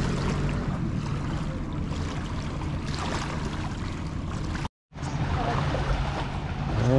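Steady road and engine drone heard inside a moving car, a low hum under a noisy rush. The sound cuts out completely for a moment about two-thirds through, then returns.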